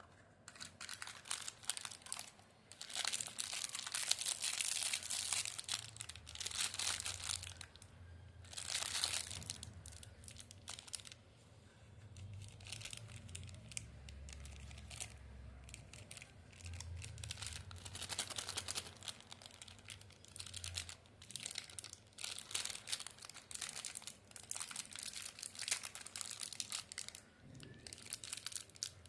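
Candy wrappers being crinkled and torn open by hand, in irregular crackling bursts that are loudest in the first few seconds and go on in shorter bursts after.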